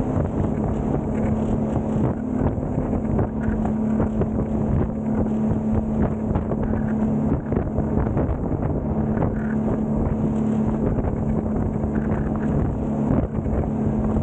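Twin outboard motors on a 28-foot Raider boat running steadily at cruising speed, a constant engine hum under the rush of water and spray off the hull, with wind on the microphone.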